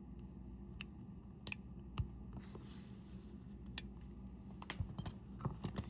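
Small sharp clicks and light scraping of tools on watch parts during disassembly: a few single clicks, then a quicker run of them near the end.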